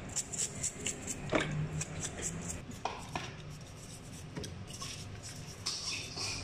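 A toothbrush scrubbing a crab's shell in a basin of water: quick scratchy brushing strokes, with a few sharper knocks of shell.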